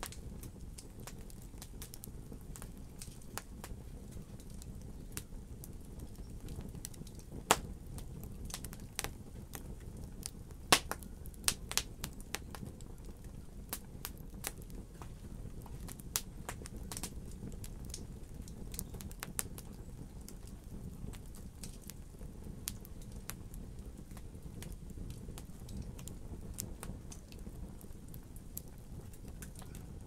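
Wood log fire burning in a fireplace: a steady low rumble of flames under scattered crackles and pops. A few louder, sharper snaps cluster in the middle.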